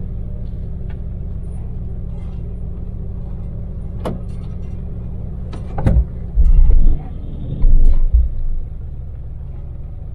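Daewoo Damas microvan's small three-cylinder LPG engine running steadily at cruising speed, with a low road rumble. A couple of sharp clicks come about four and six seconds in, and heavy low thumps come in the second half.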